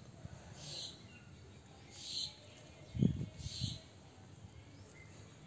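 A bird giving a short, high call about every second and a half, three times. About three seconds in come a couple of low thumps, the loudest sound here.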